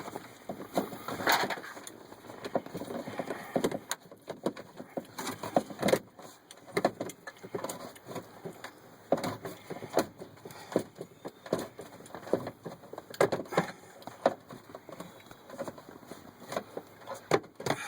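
Irregular clicks, taps and knocks of hand tools and metal fasteners being worked under a truck dashboard, as bolts are driven into the heater core housing at an awkward angle.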